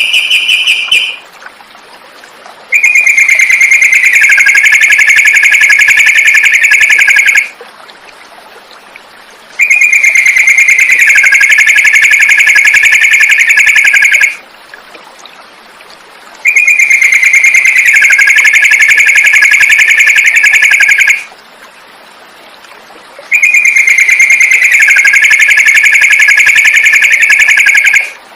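Songbird song played as a masteran training track: a loud, rapid trill held about 4–5 seconds with a dip in pitch partway through, repeated four times in identical copies with about two-second gaps between.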